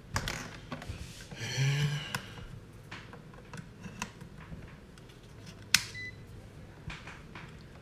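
Clicks and rattles of a digital multimeter and its test leads being handled on a bench: the rotary dial turned and the test-lead plugs pushed into the meter's jacks. The sharpest click comes a little before 6 s in, followed by a short high beep from the meter.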